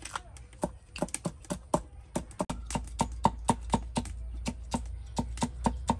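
Cleaver chopping green chili peppers on a wooden chopping block: a quick, even run of sharp knocks, about four a second.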